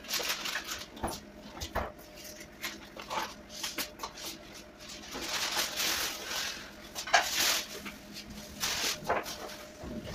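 Plastic bags rustling and hands brushing dry onion skins about in a metal wire pull-out basket, in irregular bursts, loudest around the middle.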